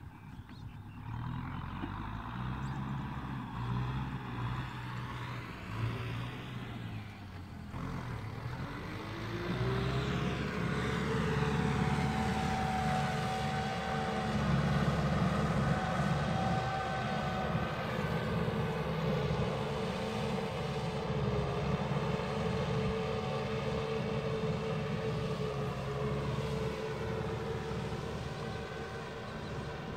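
Farm tractor engine running while ploughing, its pitch rising about a third of the way in and then holding steady.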